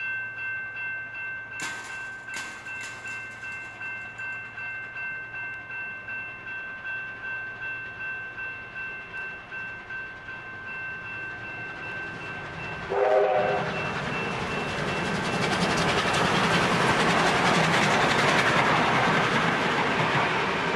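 Level crossing warning bell ringing in a steady, regular pulse. About 13 seconds in comes a short whistle blast from the Victorian Railways R class 4-6-4 steam locomotives, and then the noise of the steam train passing over the crossing builds and stays loud.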